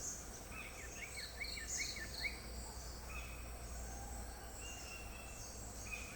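Wild forest birds calling: a quick run of short repeated chirps in the first couple of seconds and again near the end, with a few thinner high calls, over a faint steady high-pitched drone.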